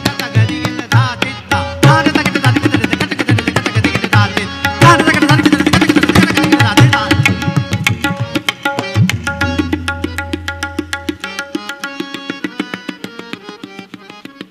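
Tabla played at speed in a tipalli composition: fast, dense strokes on the dayan with bayan bass strokes whose pitch bends up and down under the palm. Over the last few seconds the strokes grow quieter over a harmonium's steady held notes.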